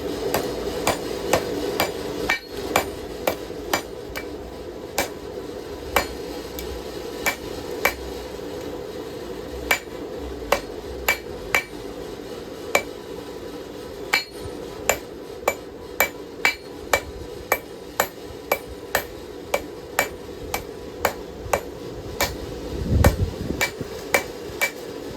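Hand hammer striking hot steel on an anvil: a long run of sharp, ringing blows, about one to two a second with short pauses, as the blade is forged down to drive the hump back toward the point. A steady hum runs underneath, and there is one heavier, deeper thump near the end.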